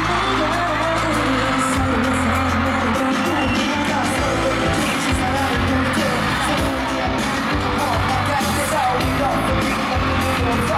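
Pop song with singing, played loud over a concert sound system. The melody and bass run steadily throughout.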